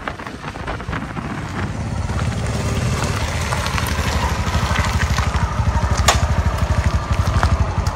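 Small commuter motorcycle engine running at low speed and growing louder, settling to an idle as the bike stops. There is one sharp click about six seconds in.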